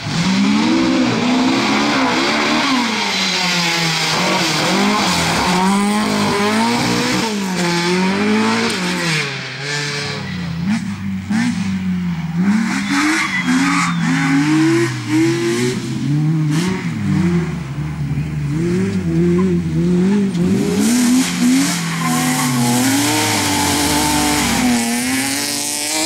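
Rally car engines at full throttle, revving up and dropping back over and over through gear changes and lifts for corners, as a Ford Escort Mk2 and then a BMW E36 3 Series pass in turn.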